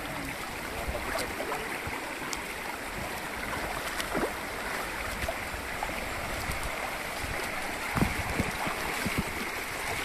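Shallow stream rushing and burbling over rocks, with a few knocks and splashes from sandaled feet wading through the water, the clearest about eight seconds in.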